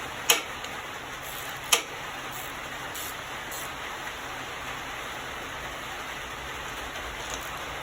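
Two sharp metallic clicks about a second and a half apart, then a few fainter ticks, from a socket wrench working the carburetor mounting nuts on a lawn mower engine, over a steady hiss.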